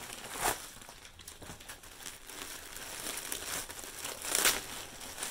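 Plastic mailer bag crinkling as it is handled and opened, with two louder rustles, about half a second in and again near the end.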